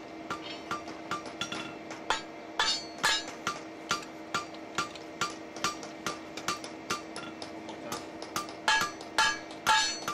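Hammer blows on hot steel over an anvil at an even pace of about two to three a second, forging a bottom swage block, with the anvil ringing steadily underneath. A few heavier blows come in the middle and near the end.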